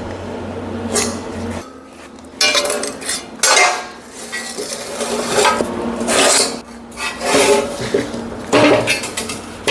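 Steel parts clanking and scraping against each other in about seven irregular bursts as pieces of a fabricated bracket are handled and set in place; a low hum stops about a second and a half in.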